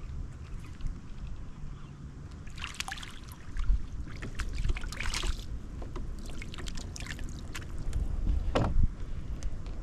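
A hooked bream splashing and thrashing at the water's surface beside a kayak in three short flurries as it is reeled in, with one sharper splash or knock near the end as it is lifted aboard, over a steady low rumble.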